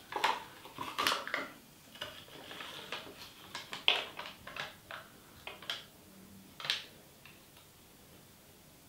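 Peel-off lid being pulled back from a plastic dessert pot: a few sharp crinkles in the first second or so, then scattered crackles that die away before the end.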